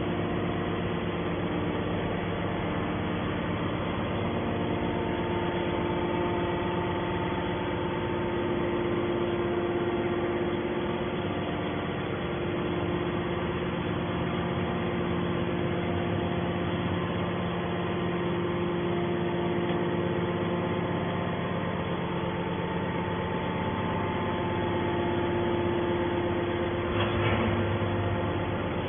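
Hydraulic can baler's motor and pump running with a steady hum.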